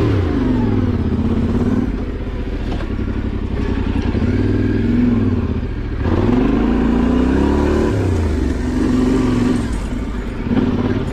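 Yamaha Ténéré 700's 689 cc parallel-twin engine under way off-road, the revs rising and falling several times as the throttle is opened and closed, with a few sharp knocks.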